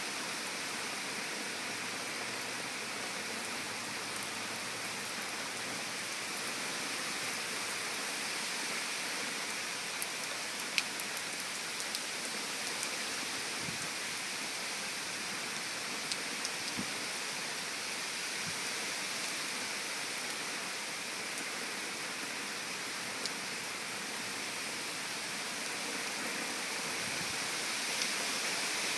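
Heavy rain falling steadily: an even hiss of rain, with a few sharp drop taps about a third of the way in.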